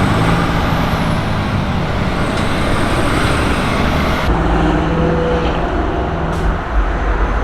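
Road traffic: a steady wash of engine and tyre noise from passing cars and trucks, with a deeper rumble from about four seconds in.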